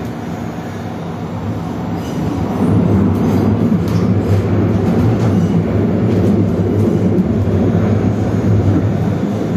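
Running noise of an Astra Imperio Metropolitan tram heard from inside the passenger car: a steady low hum and wheel-on-rail rumble with faint ticks. It grows louder about two and a half seconds in.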